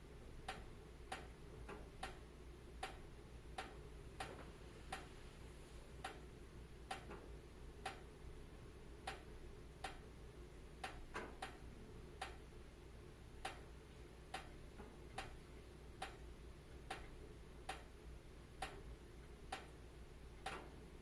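Wood fire crackling faintly: sharp pops about one or two a second at uneven intervals, sometimes two or three close together, over a steady low hiss.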